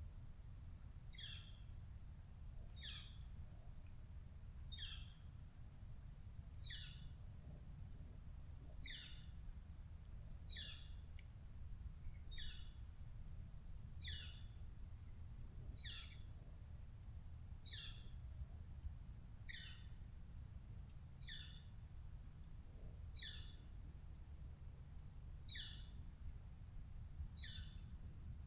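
A bird repeating a short call that slides down in pitch, about once every second and three-quarters, with faint high chips from other birds, over a steady low rumble.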